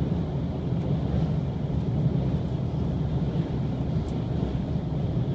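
Shiokaze limited express train running at speed across a steel truss bridge, heard from inside the passenger cabin as a steady low rumble.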